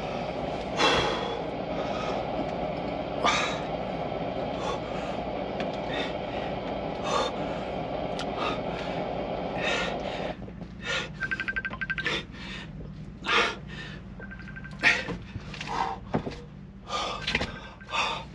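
A man breathing hard, with sharp forceful exhales, as he lifts a dumbbell. A steady low rush underneath cuts off about ten seconds in. After that a phone rings twice in short runs of rapid pulsing.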